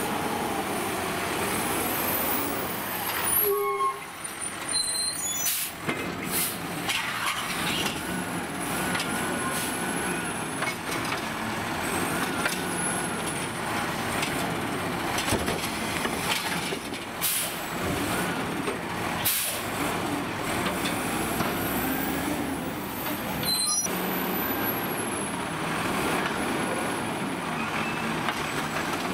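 Heil 7000 automated side-loader garbage truck's diesel engine running as its hydraulic arm grips and lifts a curbside cart, with several short, sharp air hisses from the brakes.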